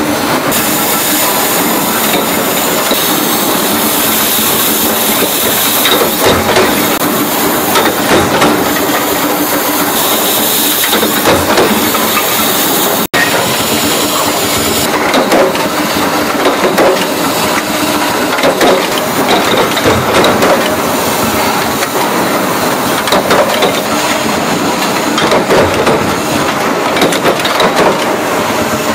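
Several flywheel-driven mechanical punch presses running together, a steady machine din packed with quick clanking strokes as the dies stamp printed sheet-metal tea-jar parts.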